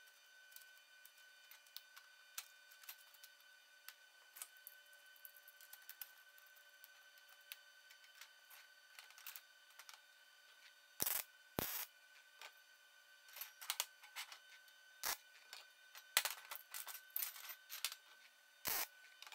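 Steel vise-grip locking pliers and corner jigs being handled and clamped onto square steel tubing on a steel welding table: scattered small metal clicks, with a few sharper clanks in the second half. A faint steady tone runs underneath.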